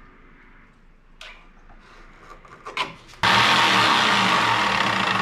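Corded jigsaw cutting a Huon pine board. A few faint clicks as the saw is set on the wood, then about three seconds in the saw starts suddenly and cuts with a loud, steady noise.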